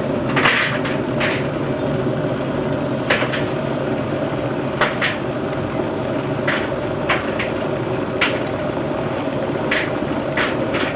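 REDMOND RK-M1441 electric kettle boiling water: a steady low rush of the water heating, with scattered short pops and clicks at irregular intervals.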